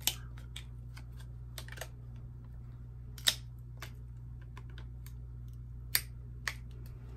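Sharp plastic clicks and snaps from a handheld corner-rounder punch squeezed on a thick laminated card: scattered clicks, the loudest just after the start, about three seconds in and about six seconds in. The punch is cracked at the corner and struggling to cut through the thick lamination.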